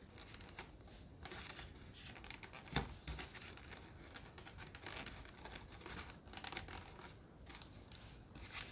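Faint rustling and scraping as an RC glider's wing spar and left wing are pushed into place in the fuselage, with a single knock about three seconds in.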